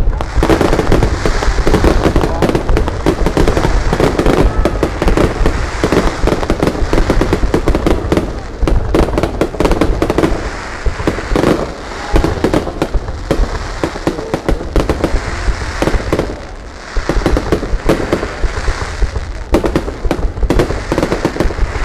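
Aerial fireworks display going off in a dense, continuous barrage of rapid bangs and crackles, with a few brief lulls.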